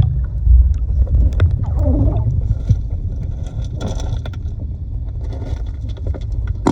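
Muffled low rumble of water moving around a submerged camera, with scattered clicks and knocks.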